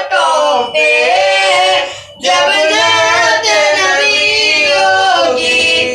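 A boy singing a naat, an Urdu devotional poem in praise of the Prophet, unaccompanied in long, wavering held notes, with a short break for breath about two seconds in.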